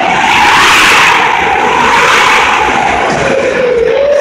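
Jet engine on a golf cart running loud: a whine that slides lower near the end over a steady rush of exhaust.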